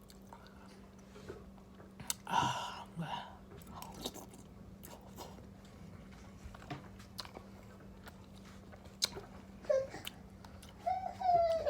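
Close-up chewing and biting of food, with scattered small clicks from the mouth and a faint steady hum underneath.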